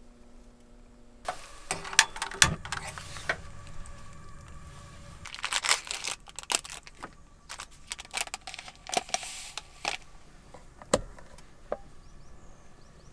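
Handling noise: irregular knocks, clicks and rustling. It comes in two busy stretches, about one to three seconds in and about five to ten seconds in, with a single sharp knock near the end.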